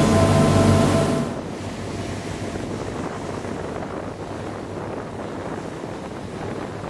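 Steady wind buffeting the microphone and the rush of the sea around a moving boat. The first second is louder, with a few held tones over the noise that stop about a second in.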